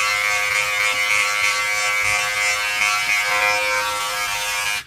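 Philips BodyGroom 7000 body groomer running with its 5 mm trimming comb as it trims chest hair: a steady electric buzz that cuts off suddenly near the end.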